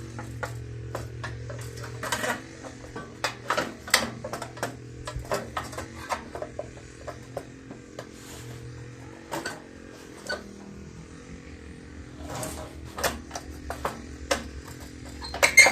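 Irregular knocks, clicks and rattles of a plastic engine shroud being forced and worked back into place over a small Briggs & Stratton engine, with a cluster of sharper knocks near the end. A steady low hum runs underneath.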